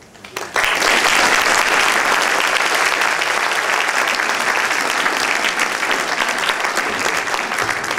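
Audience applauding: many hands clapping, starting suddenly about half a second in and holding steady.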